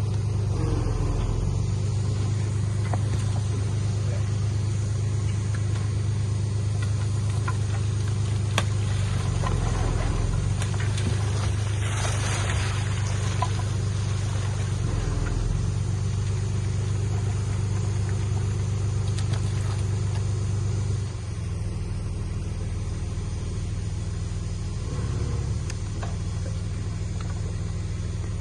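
A heavy earthmoving machine's diesel engine runs steadily with a deep hum, along with scattered clanks and a short rush of noise about halfway through. The engine gets quieter about three-quarters of the way through.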